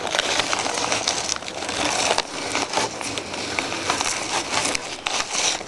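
Close, continuous crackling and crinkling, thick with small sharp clicks, that eases off a little after about two seconds.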